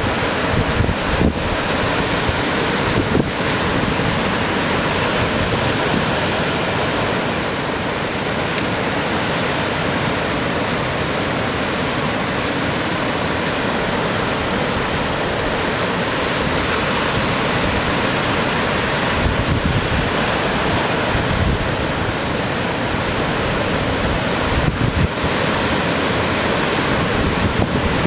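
Ocean surf breaking and washing around shoreline rocks: a continuous rush of whitewater that swells and eases as waves come in, with wind buffeting the microphone in low gusts.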